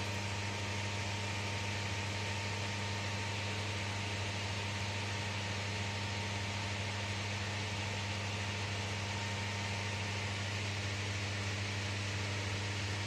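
Ferris wheel cabin's climate-control fan unit running: a steady airy hiss over a strong, even low hum with a faint higher tone.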